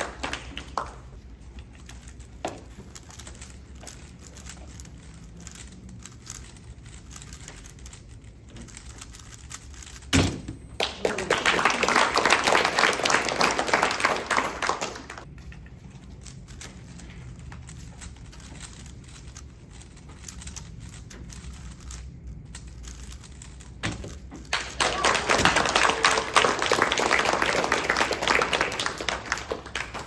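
Audience applause in two bursts of about five seconds each, the first about ten seconds in and the second near the end. Between them, faint quick clicking of speedcubes being turned.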